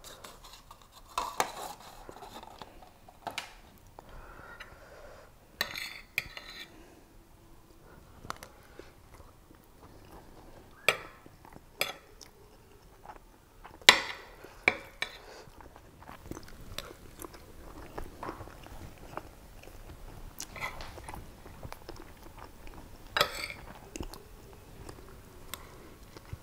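Metal spoon clinking and scraping on a plate of mutton biryani in sharp, irregular clicks, the loudest about halfway through, with chewing in between.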